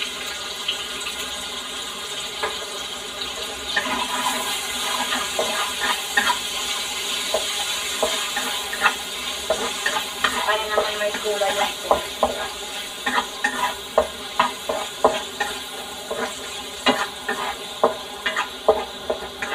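Pork pieces frying in a honeycomb-pattern stainless steel wok, a steady sizzle with the sauce in, while a spatula stirs and tosses them. The spatula knocks and scrapes irregularly against the pan, more often from about four seconds in.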